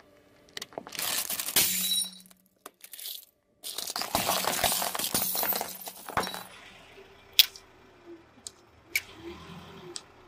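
A car tyre rolling over a plate heaped with coins. The coins clink and scrape, and the plate cracks and breaks apart, in two loud spells of crunching with a ringing metallic edge, followed by a few sharp separate clicks.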